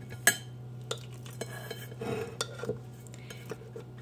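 A spatula scooping and spreading thick miso paste, with scattered light clicks and taps against a glass measuring cup and a ceramic plate; a sharp tap about a quarter second in is the loudest, with a short scrape near the middle. A low steady hum runs underneath.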